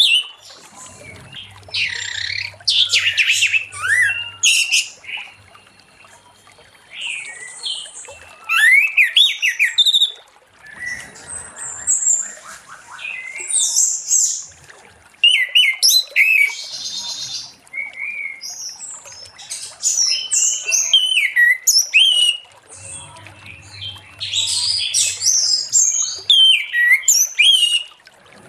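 Orange-headed thrush singing: bursts of rapid, varied, high warbling and whistled phrases with short pauses between them. A faint low hum sits under some phrases.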